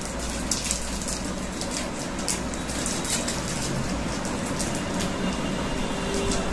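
Plastic chocolate wrappers crinkling as they are peeled open, many sharp little crackles, over a steady background noise with a low hum.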